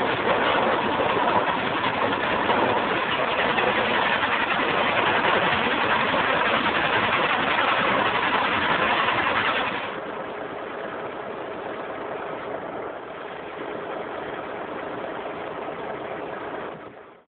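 Stone-tumbling machine running with a steady, even mechanical noise. It drops quieter about ten seconds in and fades out near the end.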